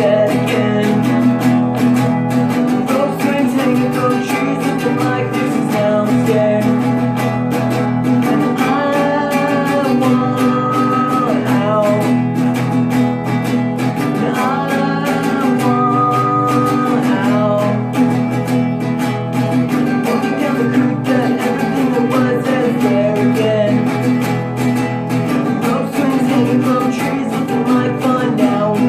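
Acoustic guitar music, strummed and plucked, with a melody line running over the chords.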